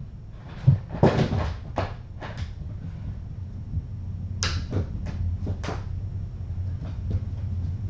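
Scattered soft knocks, rattles and scratchy rustles, about a dozen short ones in two clusters, as a cat and kittens move about in and around an open cabinet. A steady low hum runs underneath.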